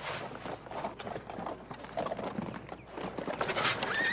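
A horse's hooves clattering and thudding irregularly on hard ground as it is worked, with a short high whinny starting near the end.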